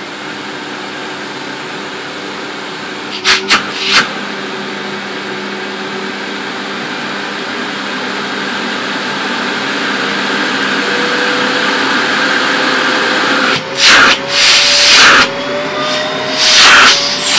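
Sebo C2 Total canister vacuum cleaner running on its first switch-on, its motor sounding healthy. The running note grows slowly louder and higher. There are a few knocks a few seconds in, and loud bursts of rushing air near the end.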